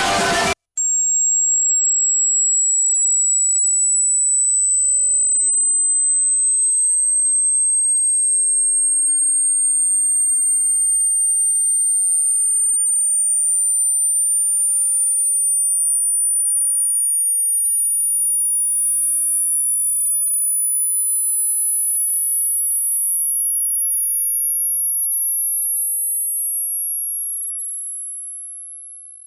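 Music cuts off at the start, and after a brief gap a single pure, very high-pitched electronic tone sounds loud and steady. It creeps slowly upward in pitch in small steps.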